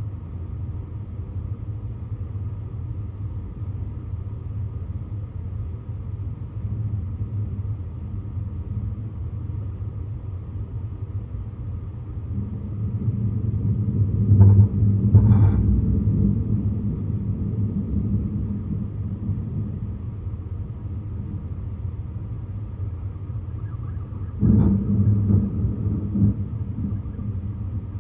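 Thunder rumbling over a steady low background rumble: one roll builds up and peaks about halfway through, and a second peal starts suddenly near the end and dies away.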